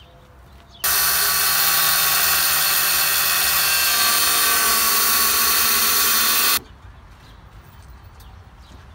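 Power tool cutting flat steel bar with a steady, loud, high-pitched noise that starts abruptly about a second in and stops abruptly about six seconds later.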